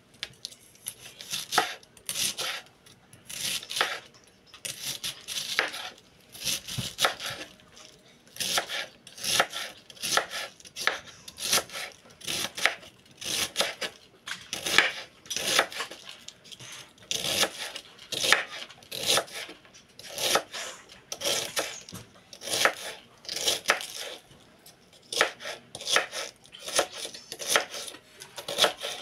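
Kitchen knife shredding a red cabbage on a wooden cutting board: a steady run of cuts, about one or two a second, each one the blade going through the leaves and knocking on the board.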